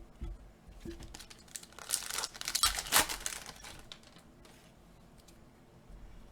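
A trading card pack's wrapper being torn open and crinkled, with the loudest crackling rustle about two to three seconds in and quieter handling afterwards.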